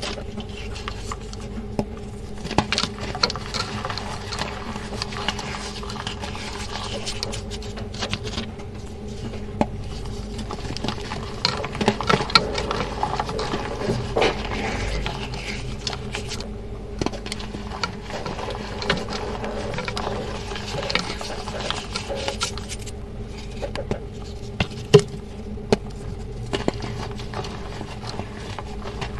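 Reformed gym chalk being crumbled and crushed with water, a dense run of small crunches and crackles with sharper snaps here and there, over a faint steady hum.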